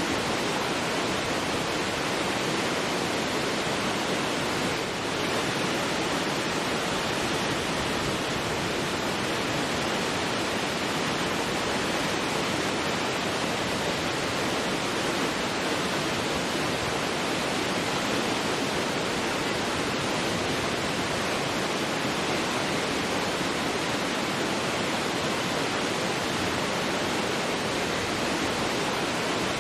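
Large waterfall: a steady, unbroken rush of falling water, very noisy and spread from low to high pitch.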